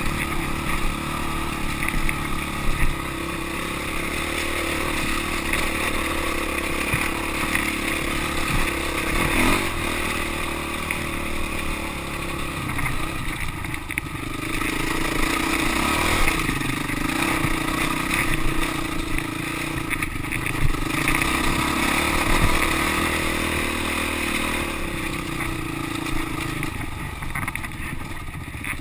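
Dirt bike engine running under load on an uphill trail climb, its pitch rising and falling with the throttle.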